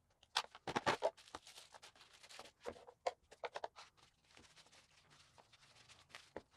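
Handling noise of unpacking: a small hard plastic box snapped open with a quick cluster of clicks and rattles about half a second in, small bagged parts clattering onto a wooden bench, then wrapping paper rustling as a metal lathe live center is unwrapped.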